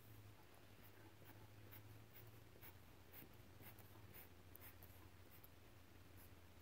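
Faint strokes of a felt-tip marker drawing short lines on paper, about two a second.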